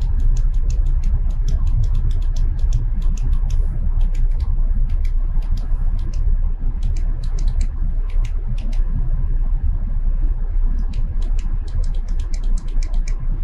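Steady low rumble and hum of the CNC stone saw and shop machinery. Over it come runs of quick, light clicks with short pauses between them while the spindle head is jogged slowly toward the indicator's zero.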